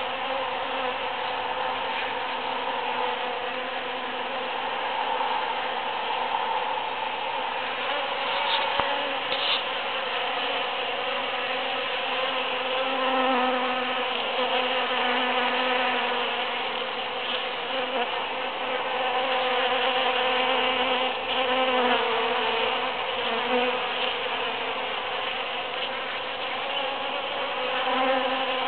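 Several bees buzzing while foraging in large cactus flowers, a continuous hum that wavers in pitch as individual bees fly in close and away again.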